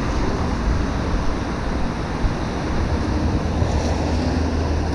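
Steady rain noise with wind rumbling on the microphone and the hiss of traffic on a wet street.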